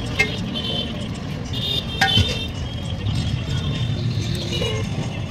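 Small metallic clinks and clicks as a steel piston ring is handled and worked onto a Honda Dream motorcycle piston, with the sharpest click about two seconds in, over a steady low background rumble.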